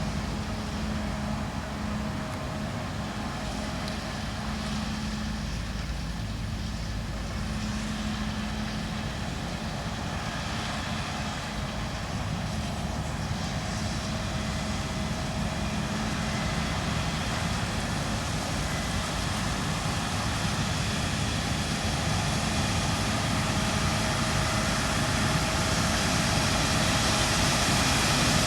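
Claas Lexion 7600 combine harvester running while cutting beans: a steady drone of engine and machinery that grows gradually louder toward the end.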